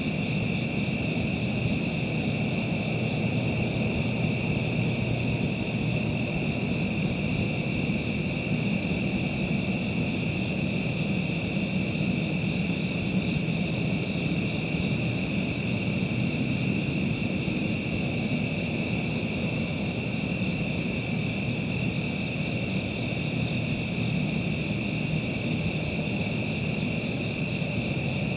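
Steady night chorus of insects: a shrill, unbroken drone in several high bands with a slight pulsing, over a low, steady rumble.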